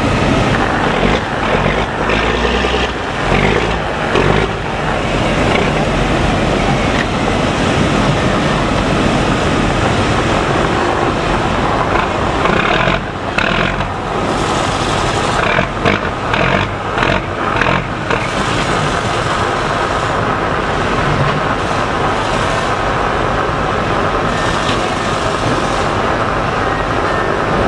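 Fishing boat's diesel engine running loudly and steadily, with a few brief knocks about halfway through.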